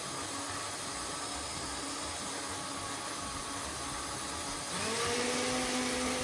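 Countertop blender with a glass jug running, its motor and blade churning a liquid tomato gazpacho with a steady whir. About three-quarters of the way through, the motor's pitch glides up and it runs louder.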